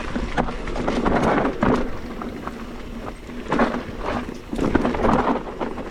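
Mountain bike riding down a dirt trail: steady rolling rumble of tyres on dirt, with repeated knocks and rattles as it goes over bumps.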